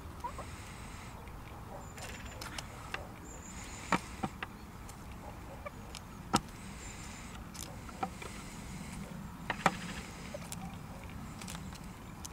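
Hens pecking mixed seed from a plastic tub: irregular sharp taps of beaks striking the grain and the plastic, a second or two apart.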